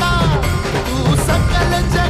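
Music: a song with a singing voice over a steady drum beat.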